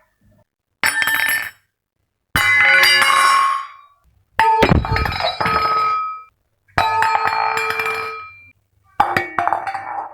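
Kitchen utensils clinking and clattering against each other with a ringing sound, in five separate bursts of a second or two each, cut apart by short silences.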